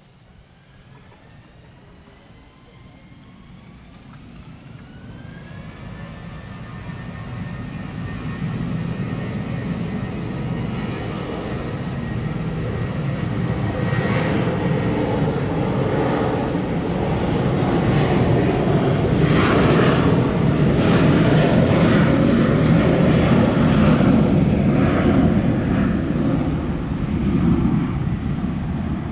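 Jet airliner's engines spooling up to takeoff power: a whine rises in pitch over the first few seconds and then holds steady, while the roar grows steadily louder and stays at its loudest through the second half as the plane rolls down the runway.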